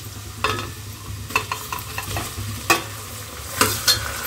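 Raw chicken pieces sizzling as they go into hot oil and browned onions in an aluminium pot. A steel ladle stirs them, with about five sharp clinks against the pot, the loudest near the end.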